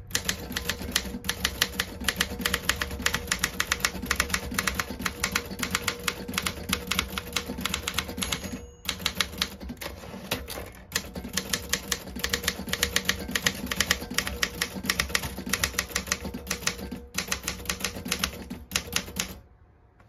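Consul 224 manual typewriter being typed on fast: a rapid, steady run of key and typebar strikes, with a few short pauses. The typing stops about half a second before the end.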